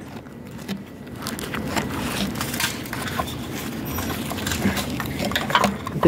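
Screwdriver and gloved hands working the wire terminals on a water heater's thermostat: a dense run of irregular small clicks, scrapes and rustles.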